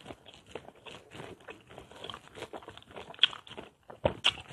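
A person biting and chewing crisp unripe mango slices: irregular wet crunches, with a louder bite about four seconds in.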